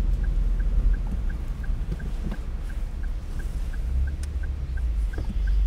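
Low rumble of an open-top Daihatsu Copen driving, with a faint tick repeating about three times a second.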